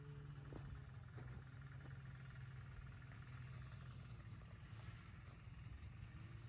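A snowmobile engine idling, faint and steady.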